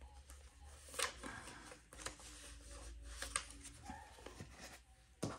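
Faint rustling of paper cash and envelopes being handled, with a few light taps and clicks.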